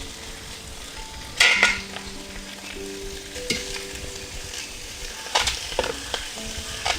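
Raw chicken pieces dropped into a hot uruli without oil, sizzling steadily. Louder clatters come about a second and a half in and again near the end as more pieces go in.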